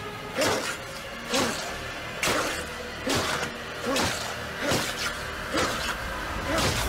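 Film fight sound: a series of eight loud blows, evenly spaced a little under a second apart, over a dramatic music score.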